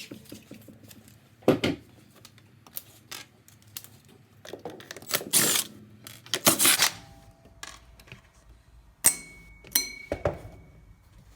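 Scattered clicks, knocks and rustles of screws being undone and the plastic housing of a cordless string trimmer being handled, with two sharper clicks and a brief ringing tone near the end.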